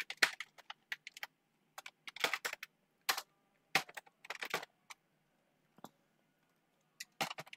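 Typing on a computer keyboard: irregular runs of quiet keystroke clicks, with a pause of about two seconds before a last short burst near the end.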